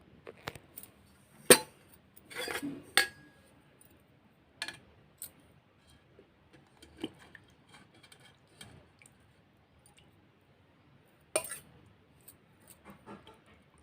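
Utensils clinking and knocking against dishes in scattered, separate strikes, some with a short ring, as set junnu is moved out of its cooking pot into a bowl.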